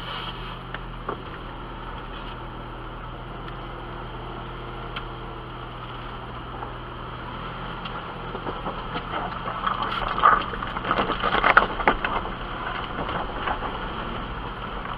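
Jeep engine running steadily at crawling speed up a rocky trail, with knocks and rattles from rocks under the tyres and the body, busiest and loudest about eight to twelve seconds in.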